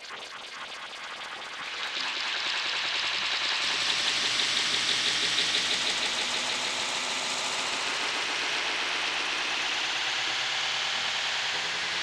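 Digital glitch noise sound effect: dense, stuttering static that swells over the first two seconds, then holds steady.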